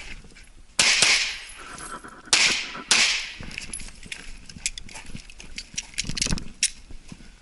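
Handgun shots: three loud reports about a second, two and a quarter, and three seconds in, each with a long ringing decay. They are followed by a run of lighter clicks and knocks.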